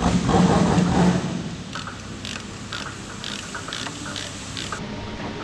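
Ratchet wrench clicking in short strokes, about two or three clicks a second, as a bolt is loosened; the clicking starts about two seconds in, after about a second of louder, muddled sound.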